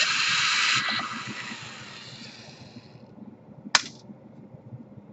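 Power screwdriver whirring as it backs out a laptop case screw. The sound is loud at first, steps down after about a second and fades out, and a single sharp click follows near the end.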